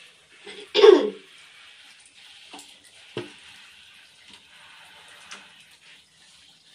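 A short cough about a second in, the loudest sound, over a faint steady hiss of running water, with a few light knocks.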